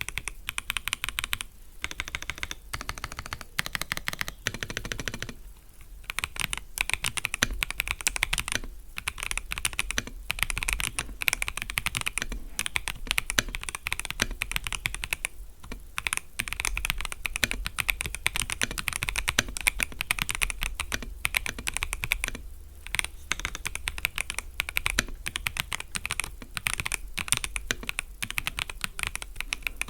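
Typing on an FL-Esports MK750 gasket-mount mechanical keyboard: fast, continuous keystroke clacks broken by a few brief pauses.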